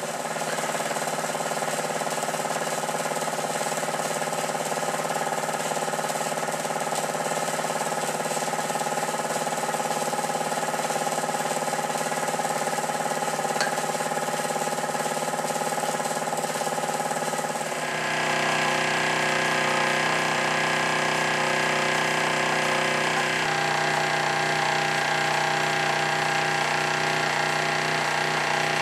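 Cheddar Puffin Mk1 model steam plant running under live steam: the small twin-cylinder engine turning over at a steady, fast rhythm. The running note changes abruptly about two-thirds of the way through.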